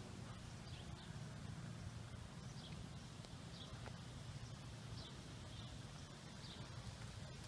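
Faint short chirps of a small bird, repeating about once a second, over a steady low rumble.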